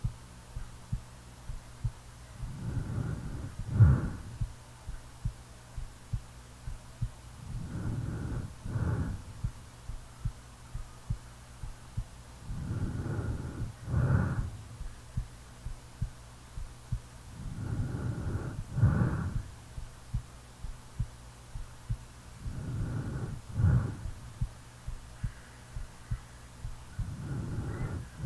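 A sleeping person snoring, one snore about every five seconds, each one swelling over a second or so and ending sharply. A steady heartbeat thumps underneath.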